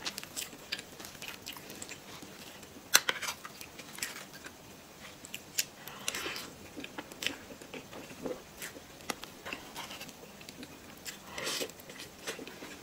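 Close-miked eating of a soft taro mille crêpe cake: a spoon cutting into the cream layers and wet mouth sounds of eating, with scattered short clicks, the sharpest about three seconds in.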